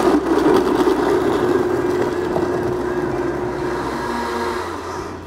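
Blendtec blender running on its Whole Juice cycle, blending whole lemons, strawberries and ice. It makes a steady motor whine over the churning of the contents, eases slightly as it goes, and stops abruptly near the end.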